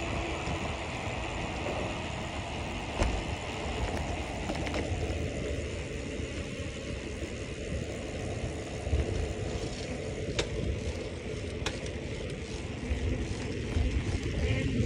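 Bicycle riding along paving: a steady rush of wind and rolling tyre noise with a rumbling low end, and a few sharp clicks.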